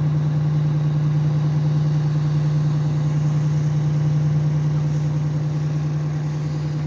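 Vehicle engine idling with a steady, low, even hum.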